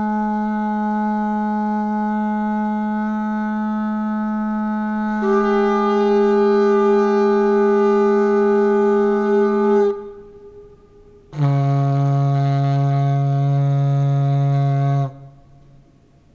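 Soundtrack music of long held droning tones. A low note is joined about five seconds in by a higher one, and both stop about ten seconds in. After a short break a lower pair of notes sounds for about four seconds and cuts off.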